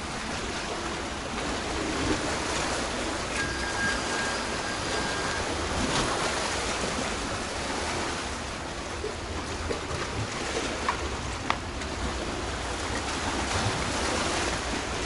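Black Sea surf washing steadily on the shore, with wind rumbling on the microphone.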